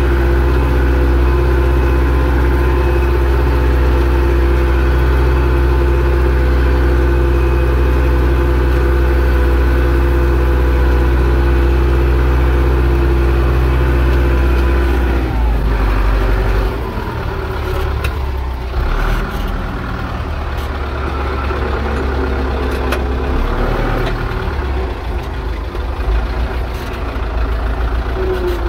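Zetor 6245 tractor's four-cylinder diesel engine running steadily. A little past halfway its steady note breaks up and drops, then runs quieter and less evenly.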